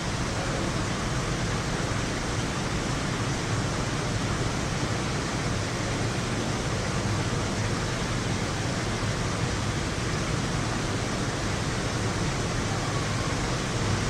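Heavy rain falling in an even, steady hiss.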